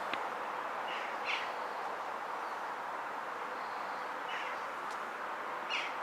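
Outdoor ambience: a steady background hiss with a few short bird calls, about four in all.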